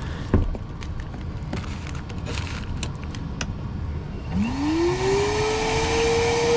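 Handling clicks and a knock, then about four seconds in a vacuum switches on. Its motor whine rises quickly in pitch and settles into a steady hum as it starts sucking out a clogged condensate drain line.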